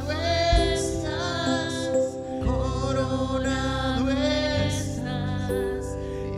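Live worship music: a woman's voice singing a slow melody through a microphone over sustained keyboard chords.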